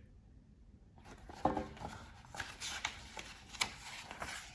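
Faint paper rustling and soft taps of a picture book being handled, its page turned, starting about a second in.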